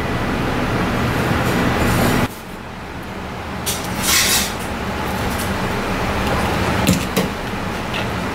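Kitchen knife cutting through the head of a hairtail on a cutting board: a short scraping hiss about four seconds in and a few sharp clicks near the end, over a steady background rumble that drops abruptly about two seconds in.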